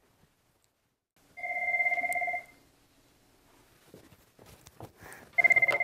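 IP office desk phone ringing twice with a warbling electronic ring about a second long. The second ring starts near the end, and the call is then answered.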